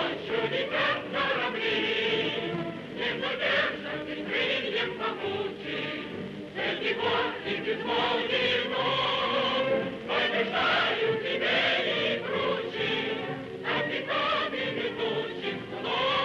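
Soundtrack music: a choir singing long held notes that waver in pitch.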